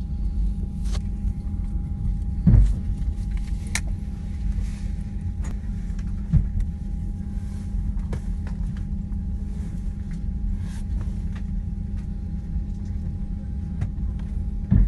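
Steady low drone with a faint constant whine, as heard from inside a parked airliner's cabin. A few dull knocks break it: one about two and a half seconds in, another around six seconds, and one near the end.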